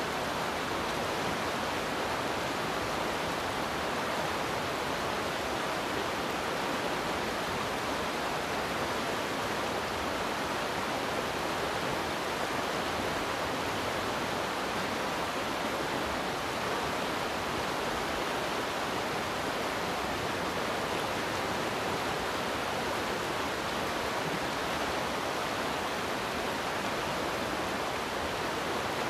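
Steady rushing of a fast, shallow river running over rocks and riffles.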